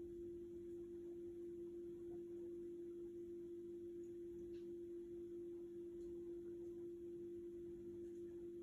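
Indesit washing machine running, heard as a faint, steady hum on one even tone with a low rumble beneath it.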